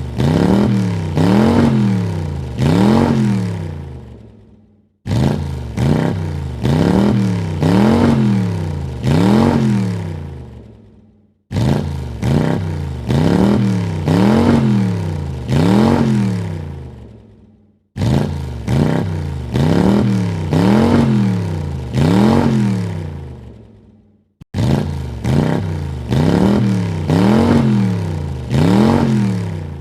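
Car engine revved from idle: a few quick blips of the throttle, then three bigger revs that rise and fall, each sequence fading away. The same sequence repeats about every six and a half seconds.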